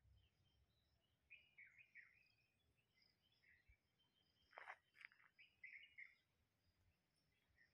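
Faint bird calls in an otherwise quiet setting: scattered short chirps, with a louder burst of sharp calls a little past the middle.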